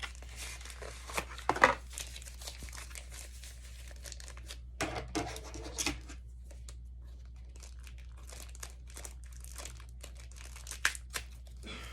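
Product packaging being handled and unwrapped: irregular crinkling and rustling with scattered sharp clicks, the loudest about a second and a half in and again near the end.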